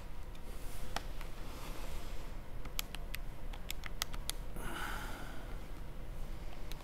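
Keys being pressed on a handheld calculator: a run of sharp, short clicks, most of them bunched between about three and four seconds in, with a sniff about five seconds in.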